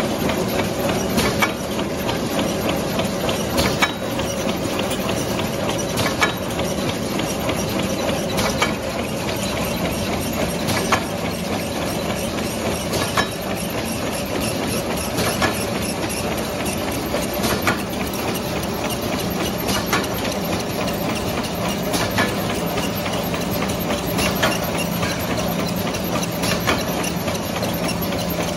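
A high-speed wet wipe folding and packing machine running: a steady mechanical whir and hum with a sharp clack about every two and a half seconds and lighter clicks in between.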